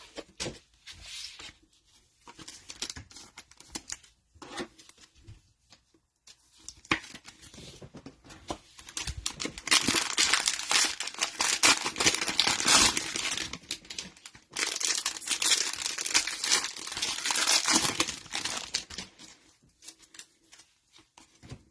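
Cellophane wrappers of trading-card cello packs being torn open and crinkled, with light clicks of cards being handled. The crinkling is heaviest in two long stretches past the middle.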